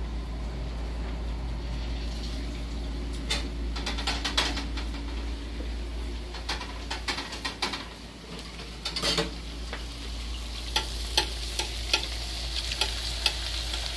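Masa quesadillas frying in hot oil: a steady sizzle with scattered sharp pops and clicks, more of them in the second half.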